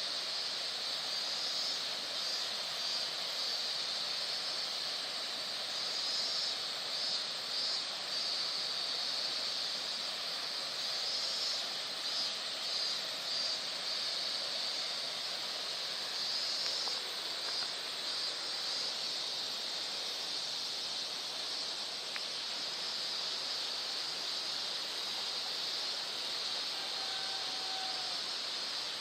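Steady babbling of a shallow stream, with a high hiss that swells in short pulses now and then.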